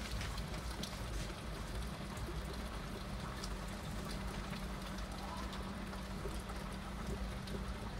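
Heavy rain falling steadily: a constant hiss with many individual drops ticking close by.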